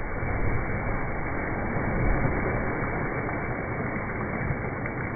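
Water splashing and churning in a swimming pool as a boy thrashes across it, heard as a steady rushing noise.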